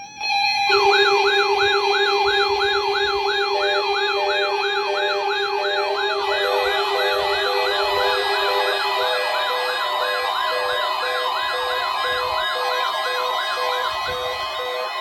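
Several NOAA weather radio receivers sounding their warning alarms together, set off by the station's weekly tone alert test. Warbling siren-like sweeps, about two a second, are layered over steady and beeping alarm tones. One low steady tone cuts off about nine seconds in.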